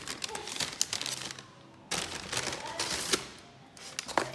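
Cardboard takeaway boxes and a paper bag being handled on a hard counter: a clatter of taps, scrapes and rustling in two bursts.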